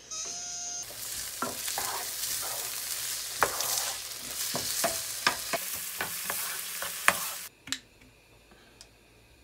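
Diced onion and bacon sizzling in a frying pan while a wooden spatula stirs them, knocking and scraping against the pan several times. The sizzle cuts off suddenly near the end.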